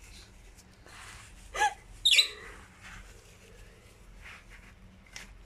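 Guinea pig giving two short high squeaks, about a second and a half and two seconds in, the second falling in pitch. Faint rustling of wood-shavings bedding lies under them.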